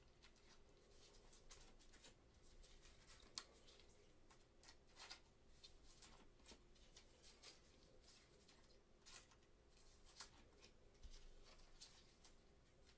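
Faint rustling and soft clicks of trading cards and clear plastic card sleeves being handled with gloved hands, in short irregular bursts.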